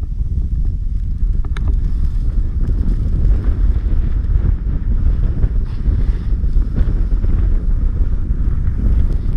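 Wind buffeting the microphone of an action camera on a moving snowboarder, a heavy, steady low rumble, with the snowboard's base hissing over the snow underneath.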